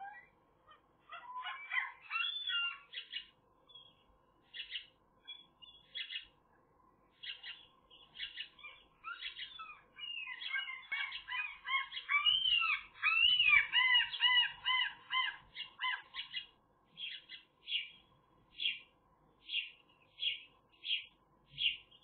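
Sparrows chirping. Scattered chirps and a busy burst of twittering in the middle give way to a steady series of single chirps, a little more than one a second.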